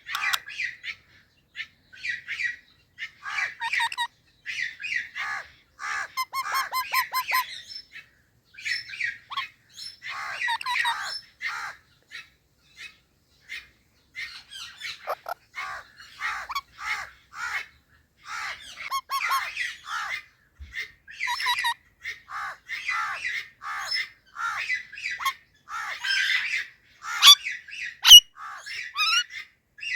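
Indian ringneck parrots calling in a run of short chattering calls and squawks with brief pauses between them, the loudest squawks near the end.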